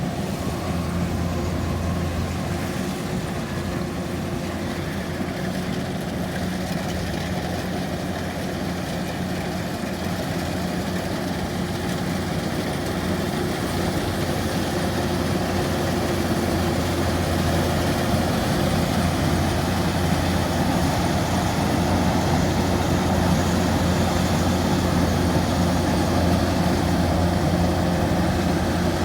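The engine of a heavy farm machine running steadily, a low even hum that grows a little louder over the second half.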